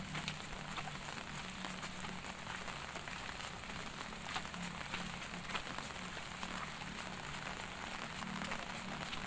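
Light drizzle falling: a steady soft patter of rain with scattered individual drops ticking.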